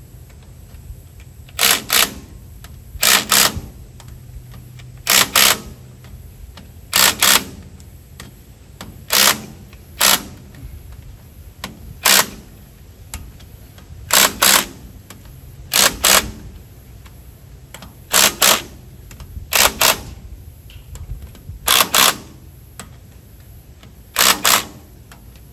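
Cordless impact wrench hammering in short bursts, mostly two quick bursts at a time, repeated about every two seconds, as a row of bolts is run tight.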